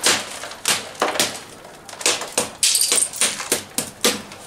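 Small hammer striking a ceramic bonsai pot in a series of sharp, irregular knocks, breaking the pot apart to free a tightly root-bound tree.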